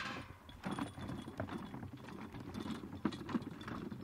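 Hand-pulled wooden wagon loaded with plastic water buckets rattling and clunking as it rolls over rough ground, with irregular knocks.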